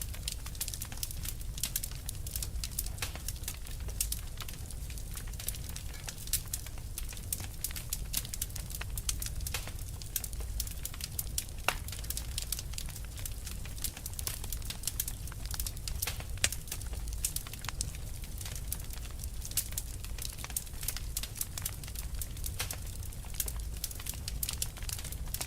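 Wood fire burning with a constant, irregular crackle of small pops and snaps over a low steady rumble.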